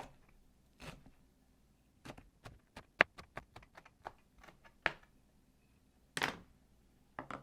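Knife cutting cilantro on a cutting board: a run of sharp taps, about three or four a second, then a short, louder noise near the end.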